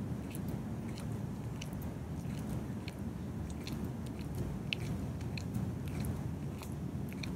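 A cat chewing on a dead rat: wet chewing with many irregular, sharp crunches.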